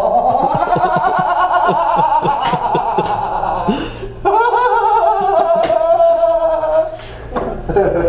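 Background music with a singing voice carrying a wavering melody, and short beats under it during the first few seconds.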